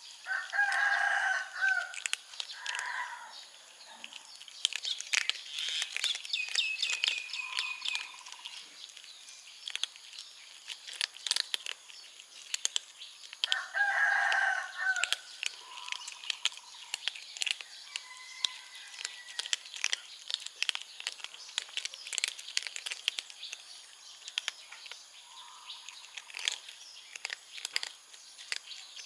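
Kittens crunching dry cat kibble, many small crisp clicks throughout. A rooster crows twice, about a second in and again about halfway, and small birds chirp in between.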